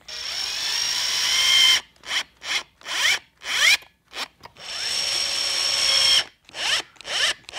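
Cordless drill-driver driving two screws through a walnut leg into the side of a footstool. Each screw takes one long steady run, then a string of short trigger pulses that rise in pitch as the screw is seated.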